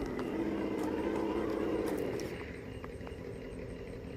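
Electric motor and geared drivetrain of an RC rock crawler whining steadily as it crawls over rock, easing off about two seconds in. A few light clicks of tires and chassis on rock.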